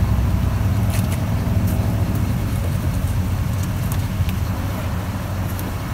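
Vehicle engine idling with a steady low rumble, with a few light clicks over it.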